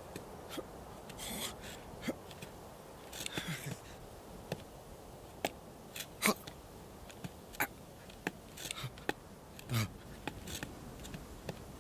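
A sheep's hooves clicking and scraping on rock in a scatter of small, sharp sounds, with a few short breathy sniffs.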